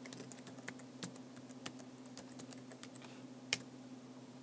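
Typing on an iPad's on-screen keyboard: a run of light, irregular taps, with one louder tap about three and a half seconds in. A faint steady hum lies underneath.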